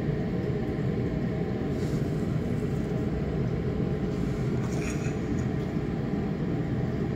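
Steady low background rumble, with a couple of faint handling knocks from the specimens being moved on the bench.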